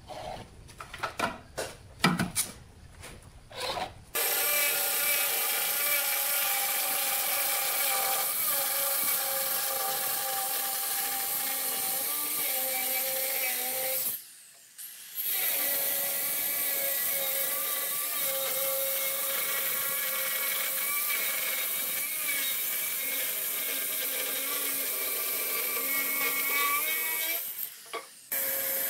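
Handheld electric stone cutter with a diamond blade cutting through a granite slab: a steady loud whine with heavy hiss that starts about four seconds in and breaks off briefly twice, once midway and once near the end. Before it starts there are a few light taps and scrapes as the template is handled on the stone.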